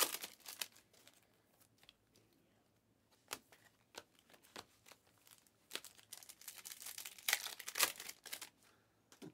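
Trading-card pack wrappers crinkling and tearing as packs are opened and handled, with a few sharp clicks. The crinkling grows denser and louder after about six seconds.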